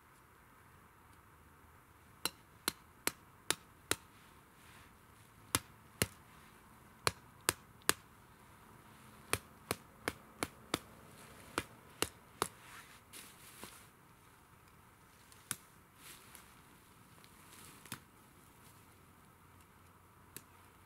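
Sharp knocks of a metal bank stick being worked into frozen ground: a run of about a dozen, two or three a second in bursts, then a few scattered ones after about twelve seconds.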